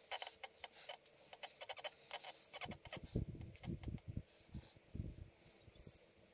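Socket ratchet clicking in quick runs as 8 mm valve cover bolts are backed out of a Kohler V-twin cylinder head. A few duller knocks of tool and metal handling come about halfway through.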